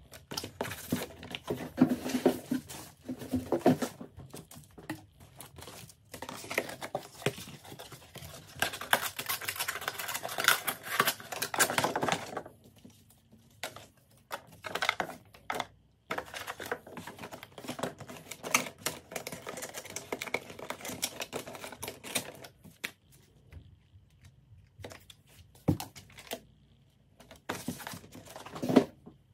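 Orders being packed by hand: packaging rustling and crinkling, with many quick clicks, in several stretches that break off abruptly.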